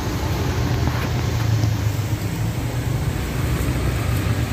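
Steady low rumble of road traffic passing close by, with a few faint clicks over it.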